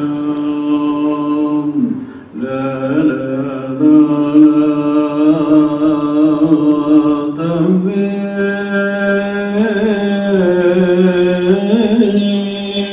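A solo male voice chanting slowly in long held notes, with a short break about two seconds in and a step up to a higher pitch about halfway through.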